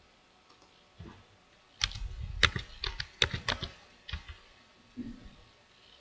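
Computer keyboard keys and mouse buttons clicking: a quick irregular run of about a dozen clicks in the middle, with single clicks before and after.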